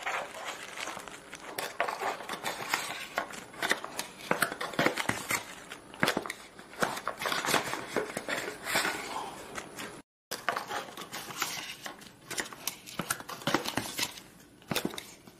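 A cardboard box being opened and handled: many short scrapes and taps of the flaps, with crinkling of the plastic wrapping and tissue paper as the contents slide out. The sound drops out completely for a moment about ten seconds in.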